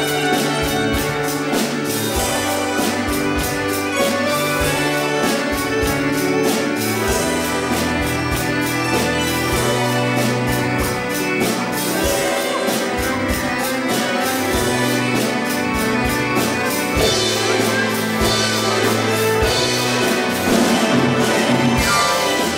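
A gusli ensemble playing together, many strings plucked at once, over a drum kit keeping a steady, even beat.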